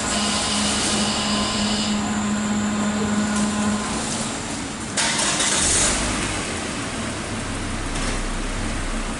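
Car wash machinery humming steadily while the motorized exit doors fold open, the hum stopping about three and a half seconds in. About five seconds in, a car engine starts with a sudden burst and settles into a low idle.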